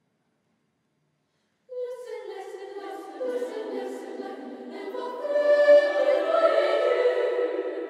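Swedish Lucia choir of young school singers starting a Lucia song about two seconds in, after silence, and swelling louder toward the middle.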